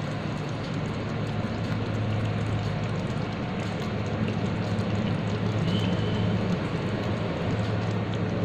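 Curry gravy sizzling in a kadai on the stove: an even, steady hiss over a low hum.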